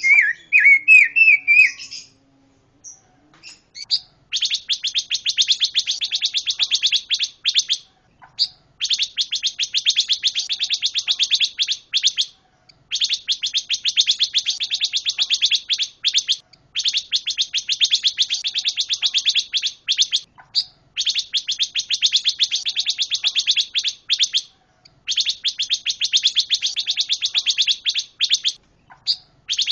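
A pancawarna songbird singing: a few quick whistled notes at the start, then long runs of very rapid, evenly repeated chattering notes, each run lasting a few seconds with short pauses between.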